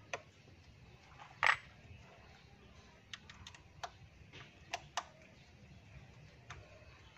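Small metal clicks and taps from an open-end wrench and tiny screws being worked and set down while the coil terminal screws inside a distributor are undone. There are about eight sharp clicks at uneven intervals, the loudest about a second and a half in.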